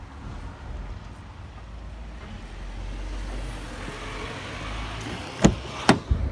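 Traffic on the road alongside, a low rumble swelling and easing off, then two sharp clicks about half a second apart near the end as the Range Rover Sport's driver's door latch is released and the door swings open.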